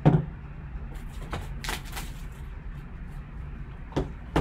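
Gloved hands handling a sealed card pack on a table: a sharp knock at the start as it is set down, wrapper rustling and crinkling about a second and a half in, and two more knocks near the end.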